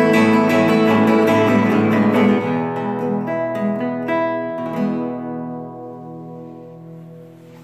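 Nylon-string classical guitar strummed, then a few single notes picked over ringing chords from about two seconds in. The closing chord is left to ring and fades away.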